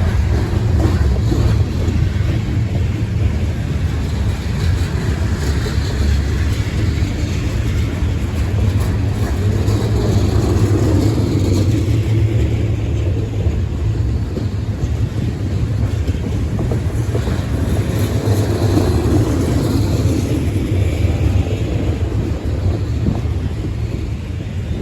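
Freight train passing close by: a steady, loud, low rumble of the train rolling on the rails, without a break.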